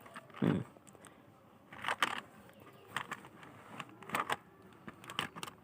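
Scattered light clicks and taps of an OTG cable, its plug and a phone being handled and fitted together, a dozen or so at uneven spacing.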